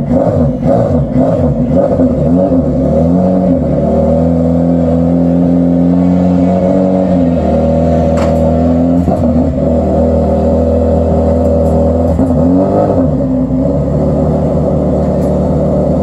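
Classic sports car engine running, holding a steady speed for a few seconds in the middle, with its revs dipping and rising again several times.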